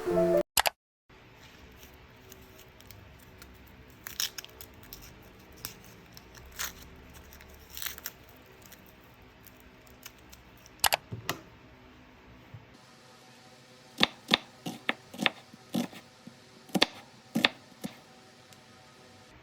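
Scattered sharp clicks and taps of small objects being handled over faint room tone, with a quick run of them in the last few seconds. Background music cuts off just after the start.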